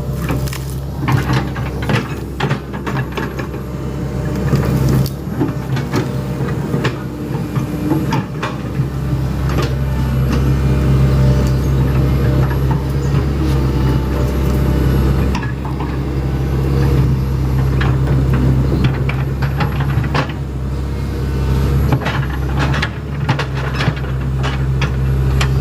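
Hitachi Zaxis 110 hydraulic excavator's diesel engine running steadily under work, with many short knocks and clatters over it as it handles logs and earth.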